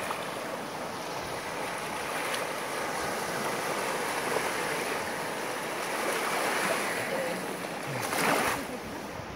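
Gentle surf washing on a sandy beach, a steady rushing wash with a louder wave sweeping up the sand about eight seconds in.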